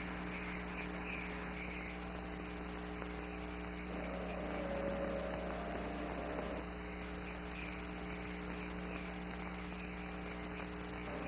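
Steady electrical mains hum on an old television soundtrack, with a faint held tone coming in about four seconds in and fading out a couple of seconds later.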